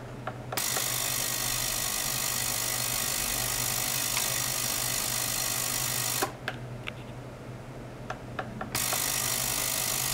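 Small ultrasonic bath driven into oscillation in water: a loud, even hiss laced with many steady high tones, the sound of ultrasonic cavitation. It switches on about half a second in, stops about six seconds in and starts again near nine seconds, with a few sharp clicks around each switch and a low steady hum underneath.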